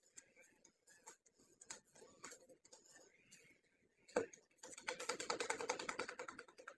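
Potter's wheel turning while wet clay is shaped by hand: scattered faint clicks, then a sharp knock about four seconds in, followed by a fast, even rattle.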